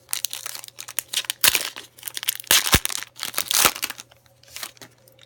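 Trading cards and a foil card-pack wrapper being handled, with a quick run of crinkles and sharp rustles that are busiest in the middle and thin out near the end.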